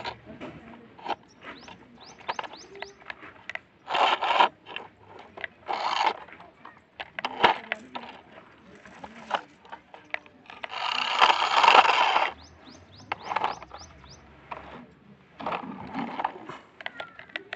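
Plastic toy car's wheels scraping and crunching through loose dry dirt in short, irregular bursts, one longer stretch near two-thirds of the way through, with small pebbles and grit clicking between the bursts.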